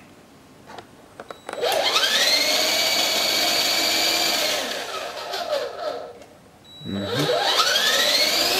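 Small electric rotor motors of a toy coaxial R/C helicopter spinning up with a rising whine, holding steady, winding down, then spinning up again near the end. The helicopter stays on the ground: it is faulty and will not fly.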